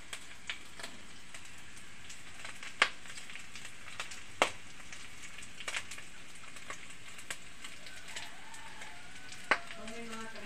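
Cooking oil sizzling in a pan, a steady hiss broken by a few sharp pops and spatters.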